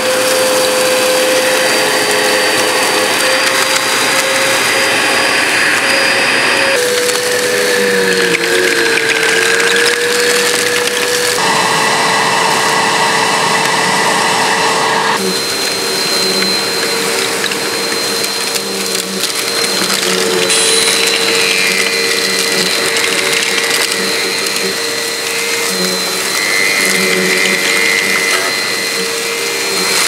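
Insignia bagless upright vacuum cleaner running while sucking up sand. Its motor gives a steady whine over the rushing hiss of air and grit. The whine sags in pitch briefly about eight seconds in, and the tone shifts a few times.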